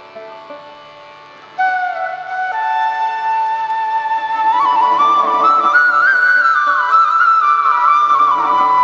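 Bansuri bamboo flute playing a slow, ornamented melody with gliding notes, coming in loudly about one and a half seconds in over a soft instrumental backing.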